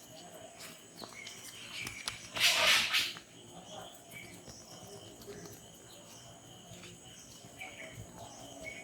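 Outdoor ambience with birds chirping and a steady high insect hum, broken about two and a half seconds in by a brief, loud rustle of hands brushing or rubbing.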